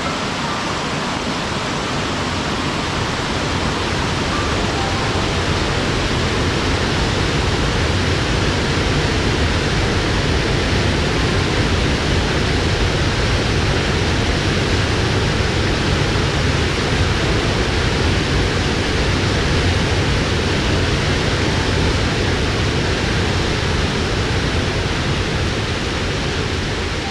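Mountain waterfall pouring down, a steady dense rush of falling water with a deep rumble underneath.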